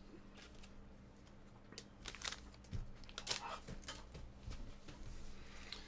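Soft rustling and scattered light clicks of trading cards and pack wrappers being handled, over a faint steady hum; the loudest handling comes in the middle.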